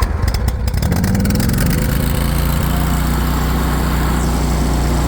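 A Craftsman ZTS 6000 zero-turn mower's 26 horsepower Briggs & Stratton Platinum engine, just started on choke, fires unevenly at first, picks up speed over the first couple of seconds, then runs steadily at high throttle.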